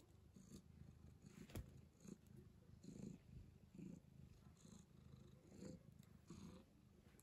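Tabby cat purring faintly, the purr swelling in soft pulses about once a second with its breathing. There is a single sharp click about one and a half seconds in.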